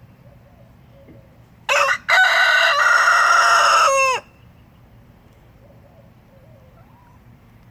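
Rooster crowing once, a loud cock-a-doodle-doo that starts with a short note about one and a half seconds in, then holds a long note and drops in pitch as it ends, about two and a half seconds in all.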